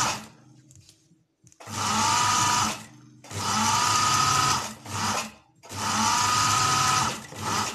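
Electric sewing machine stitching trouser fabric in three short runs of about a second and a half each, with short pauses between. Its whine rises at the start of each run as the motor speeds up, then holds steady.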